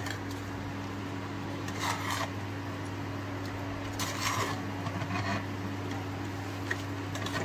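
Wooden spatula stirring and scraping macaroni in a nonstick frying pan, with a few separate short scrapes about two seconds and four seconds in. A steady low hum runs underneath.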